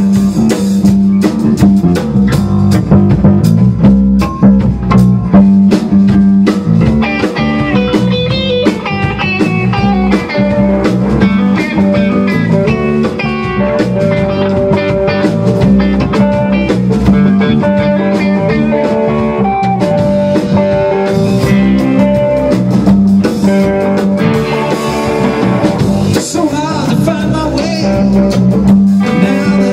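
A rock band playing live: two electric guitars over a drum kit, in a blues-rock instrumental stretch with steady drumming and running guitar notes.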